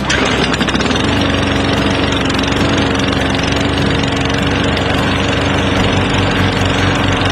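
Walk-behind gas lawn mower's small engine running steadily, loud and even in pitch.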